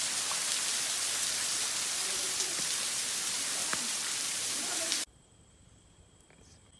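A small waterfall pouring and splashing onto rock, a dense steady hiss that cuts off suddenly about five seconds in. Faint insects then sound in two steady high tones.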